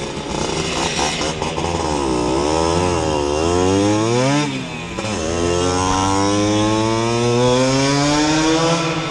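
Single-cylinder two-stroke engine of a Simson moped, bored to 60 cc and running through a Jack Motors exhaust, revving under way: the revs climb, fall away sharply about four and a half seconds in, then climb steadily again.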